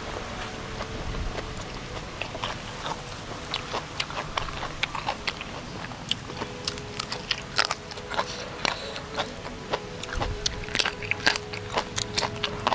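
Close-miked mouth sounds of a person biting and chewing crunchy food: many short, sharp crunches, coming thicker in the second half.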